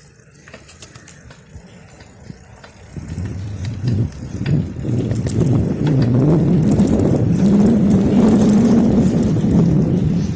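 A road vehicle's engine drawing near and running close by, getting louder from about three seconds in, its engine note rising and wavering.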